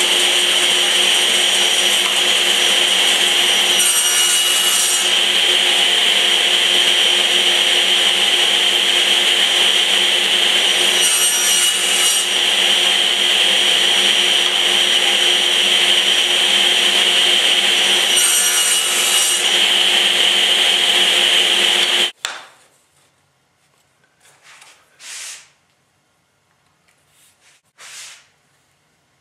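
A woodworking power tool running steadily with a constant high whine, swelling briefly three times about seven seconds apart. It cuts off abruptly a little over 20 seconds in, and a few faint rubbing sounds follow.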